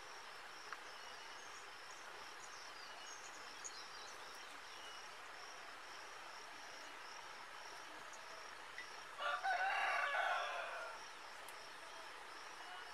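A rooster crows once, about nine seconds in, a loud call lasting about two seconds. Behind it, insects chirp steadily in a rapid, even pulse.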